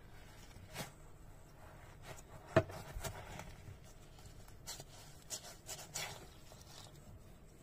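Hands handling and squeezing a rubbery toy: faint rubbing and scraping with scattered small clicks, and one sharp click or knock about two and a half seconds in.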